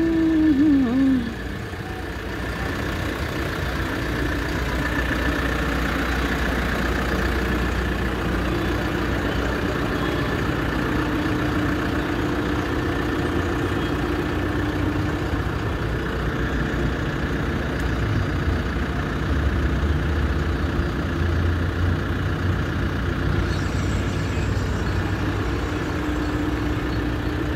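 Diesel engine of an ACE pick-and-carry crane running steadily at a constant speed.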